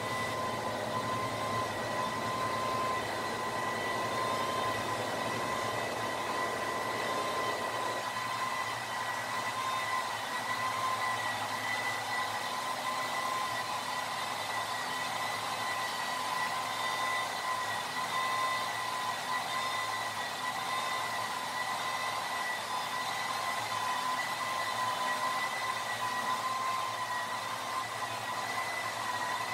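An electric motor running steadily: a whirring hiss with a constant high whine, and its lower rumble drops away about eight seconds in.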